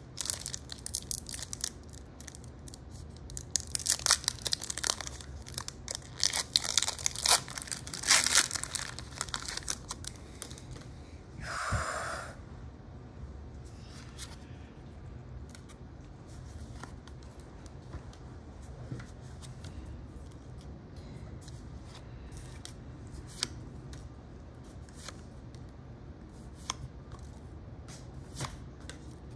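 Foil wrapper of a Pokémon card booster pack being torn and crinkled, dense quick crackles for the first ten seconds or so. A short soft rushing sound follows about twelve seconds in, then scattered soft clicks and rustles of trading cards being handled.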